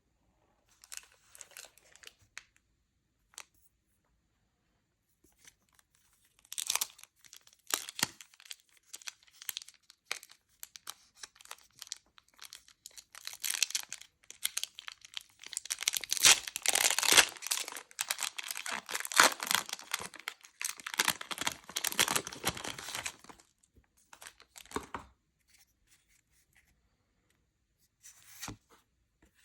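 Pokémon card pack wrapper being torn open and crinkled by hand. A few scattered rips come at first, then a long dense run of tearing and crinkling in the middle, thinning out near the end.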